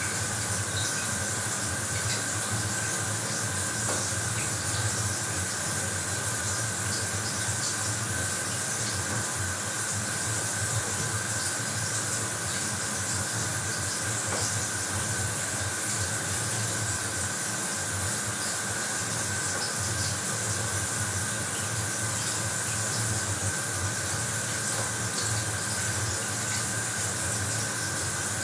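Bathroom shower running, a steady spray of water hissing down, with a thin steady tone running through it.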